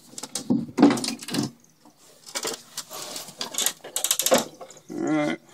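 Irregular handling clatter: knocks, scrapes and small metallic clinks as a lawnmower and tools are moved about, with no engine running.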